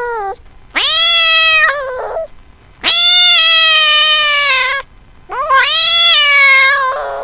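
Domestic cat meowing: three long, drawn-out meows with short pauses between them, each rising quickly in pitch and then slowly falling.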